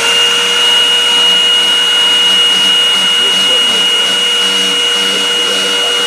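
Shark handheld vacuum cleaner running at full speed, its motor holding a steady high whine.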